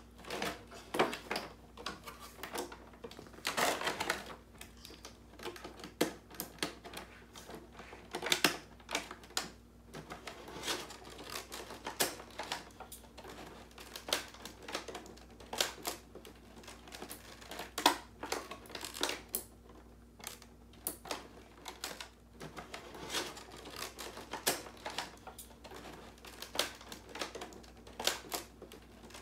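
Irregular clicking, knocking and rattling of hard plastic as a toy Eggman robot is handled and pulled at inside its clear plastic packaging tray, with some crinkling of the packaging.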